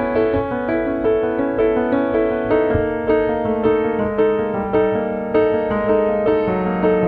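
Solo piano music: a steady, gentle melody over chords, notes struck about twice a second.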